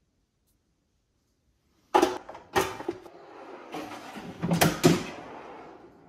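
Plastic drawer of a Philips Airfryer XXL being pushed shut with two sharp clunks, starting about two seconds in, then pulled out again along its rails with a sliding noise and a couple of knocks.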